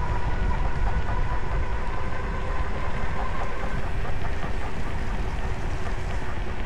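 Steady wind rush buffeting the microphone of a camera on a moving bicycle, with tyre noise on the paved trail. A faint high whine fades out about a second in.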